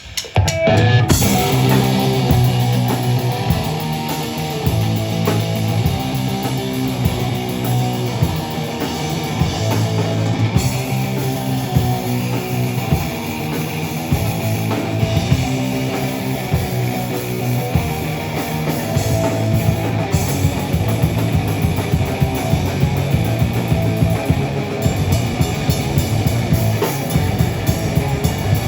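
Live rock band playing a song with electric guitar and drum kit, the full band coming in at once right at the start and playing loudly throughout.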